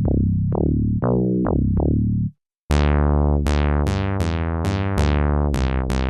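MES Mini 7 synthesizer playing a bass line on a bass patch, each note a pluck whose filter snaps closed right after the attack. It stops about two seconds in, and a second, brighter bass patch starts half a second later with sharper, zappier filter sweeps on each note.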